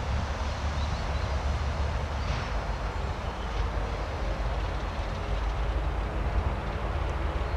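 A 2M62U twin-section diesel locomotive, with its two-stroke 14D40 diesel engines running steadily as it moves away along the track, giving a low, even engine drone.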